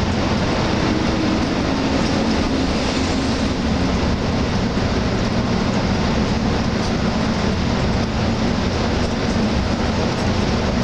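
Steady drone inside a Hyundai Universe Xpress Noble coach cruising at highway speed: diesel engine hum with tyre and wind noise, even and unbroken.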